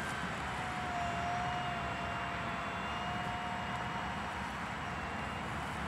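Radio-controlled SAPAC Extra 330L model aerobatic plane flying overhead, its motor and propeller holding a steady high tone that fades out about four seconds in.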